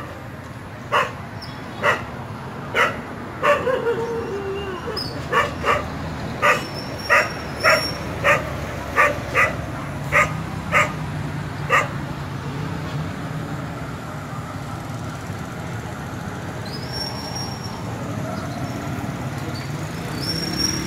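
Dogs barking in short single barks, about fifteen of them spaced irregularly, stopping around twelve seconds in, over a steady low background hum.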